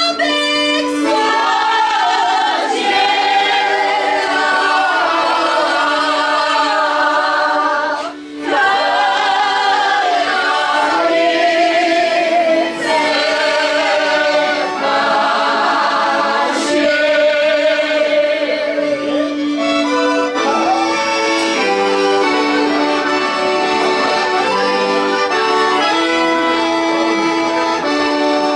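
Folk music: an accordion playing with voices singing along. There is a short break about eight seconds in.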